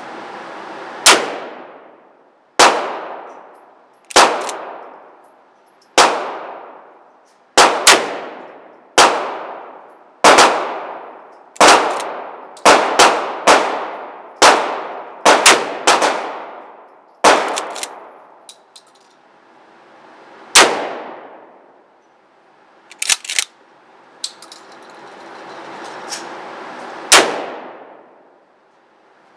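Gunshots at an indoor shooting range, a 12-gauge pump-action shotgun firing low-recoil slugs among them. There are about twenty shots in irregular succession, several in quick pairs, each followed by a long ringing echo, and they thin out over the last ten seconds.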